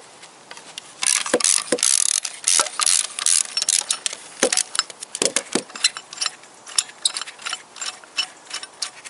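Socket ratchet wrench clicking in quick runs as a bolt on the engine block is undone, with a few duller knocks of metal in between.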